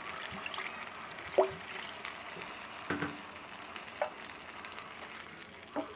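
Water and hot oil with fried mustard-paste masala sizzling and bubbling steadily in a nonstick frying pan, with the water just added. Four short sharp pops stand out, at about one and a half, three and four seconds in and again near the end.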